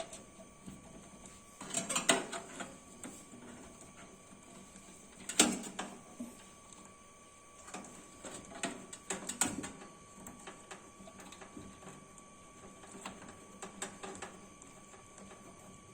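Plastic cable ties being zipped tight around wiring inside a desktop PC case: short bouts of ratcheting clicks and cable rustling, the sharpest click about five seconds in.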